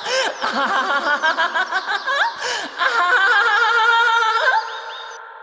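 A man's voice laughing and shouting in rapid ecstatic bursts, rising into one long held cry about three seconds in that fades away with an echo.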